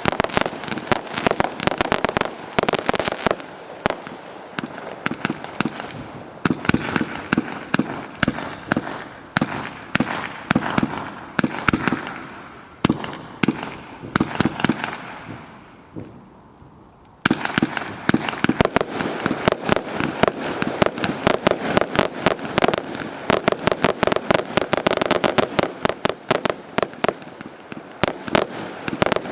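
A 399-shot professional 1.4G fireworks cake firing: a dense rapid stream of shots several per second, which thins and fades away about halfway through, then starts again abruptly at full intensity and keeps firing in quick succession.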